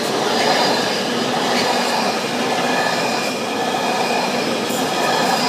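A train passing close by: steady, loud rolling noise of wheels on the rails with a faint high squeal running through it.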